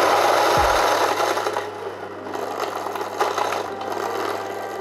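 Fellow Ode Brew Grinder's motor and flat burrs grinding a 30 g dose of coffee beans. About a second and a half in the grinding noise falls away, leaving a steady motor hum with sparse crackles of the last beans.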